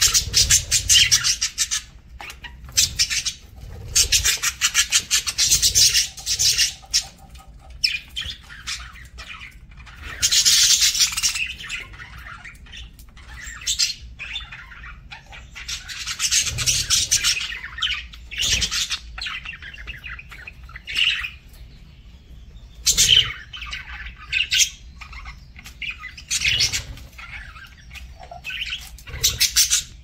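Budgerigars chattering and chirping in repeated loud bursts of a second or two, a rapid clicky warble, with a flutter of wings at the start.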